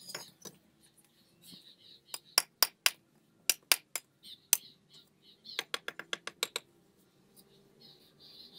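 A steel trowel striking fired brick in three quick runs of sharp clinks, as the bricklayer knocks and trims bricks. Birds chirp in the background.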